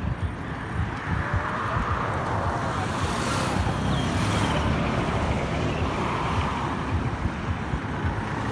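Road traffic going by, steady, with a louder hiss of a vehicle passing about three to four and a half seconds in.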